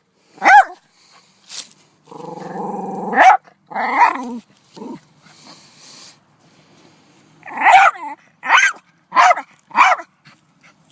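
Dog barking excitedly at something hidden it has been urged to find, with a drawn-out growl a couple of seconds in and a quick run of four barks near the end.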